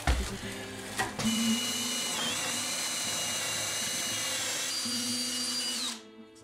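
Cordless drill boring into the wooden plank floor, running steadily for about four and a half seconds and then stopping abruptly. There are a couple of short knocks before it starts.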